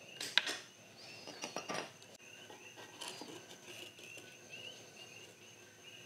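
Quiet clicks and scrapes of needle-nose pliers and fingers working the plastic clip that holds an ECM blower motor's control board in its housing, the sharpest click a fraction of a second in. Faint repeated bird chirps carry on in the background.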